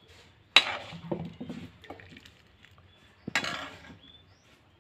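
A metal ladle clanking against a metal kadhai and a steel serving bowl. There are two loud clanks about three seconds apart, with smaller knocks and scrapes between.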